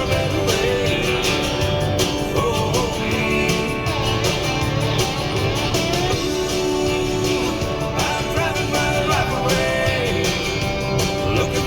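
Background music led by guitars.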